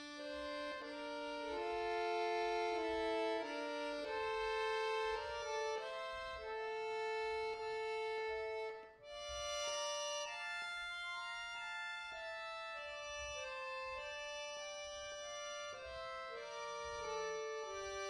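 Bayan (chromatic button accordion) playing solo: long held melody notes over sustained chords, with a brief break about halfway through before the playing resumes.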